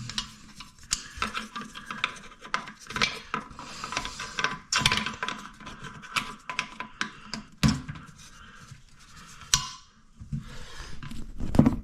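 Toilet seat mounting bolts being hand-tightened: irregular clicks, scrapes and rubbing of plastic and metal parts, with a few sharper knocks.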